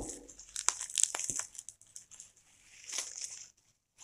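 Clear plastic bubble wrap around a tripod crinkling and rustling as it is handled and pulled open, in crackly bursts over the first second and a half and again around three seconds.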